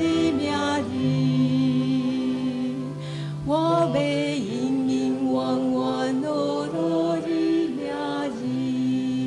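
Woman singing a Chinese worship song into a microphone, holding long notes that bend down at their ends, over steady instrumental accompaniment.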